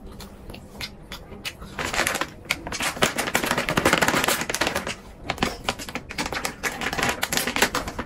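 Plastic snack packaging crinkling and rustling as it is handled, a dense run of sharp crackles loudest from about two to five seconds in, then sparser.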